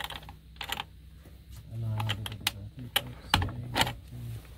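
An irregular series of about half a dozen sharp light clicks and taps, with a faint low voice murmuring under them.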